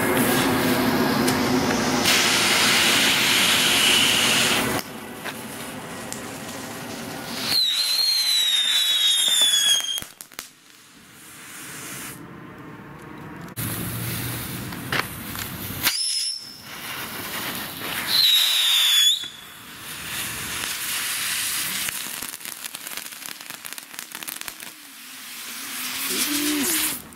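Phantom Fireworks Assault Force Kit ground novelties (amphibious tank and bomber) burning and spraying sparks with a loud hiss for the first few seconds. Wavering whistles sound at about eight seconds in and again near twenty seconds, with quieter hissing and crackling between.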